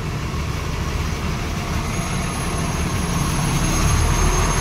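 Diesel truck engine idling with a steady low hum that grows slowly louder, over the hiss of steady rain.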